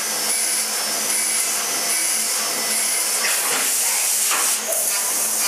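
Brother Speedio S1000X1 CNC machining centre cutting an aluminium casting under flood coolant: a steady hiss of coolant spray and cutting, with a faint high whine recurring a little faster than once a second.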